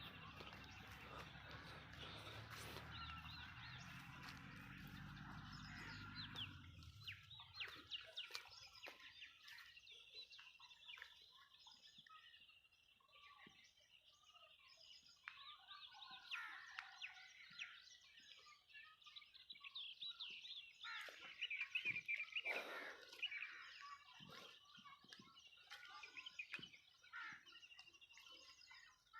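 Faint birdsong: many short chirps from several birds calling over one another. A low rumble underneath fades out about seven seconds in.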